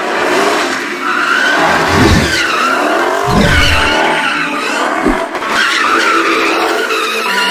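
Car tyres squealing in long, wavering screeches as cars spin donuts, with short bursts of engine revving underneath.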